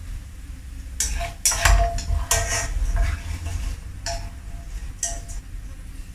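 A metal utensil clattering and scraping against a metal frying pan, with a ringing clink on the knocks, as fried anchovies are scooped out. The clatter starts about a second in and is busiest for the next two seconds, with two more single knocks later.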